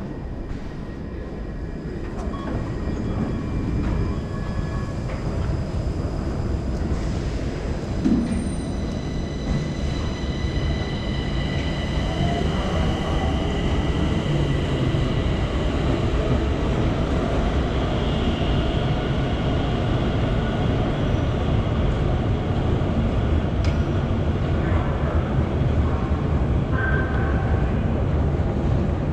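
Underground metro station ambience: a steady low rumble that swells over the first few seconds and then holds, with faint high, steady squealing tones in the middle and a brief thump about eight seconds in.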